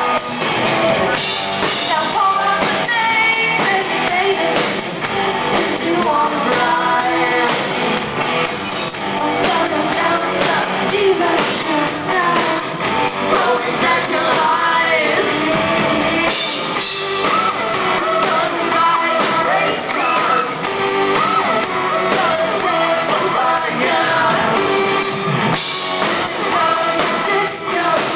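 Live rock band playing a song: electric guitar, keyboards and drums with sung vocals, heard from the audience, thin in the bass.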